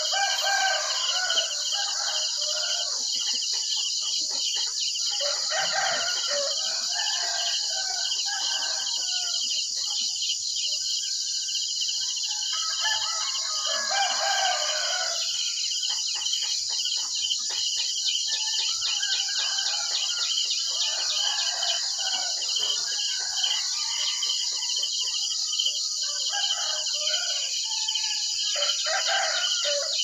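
Roosters crowing again and again, several crows overlapping in places, over a steady chorus of crickets with a high, fast-pulsing trill.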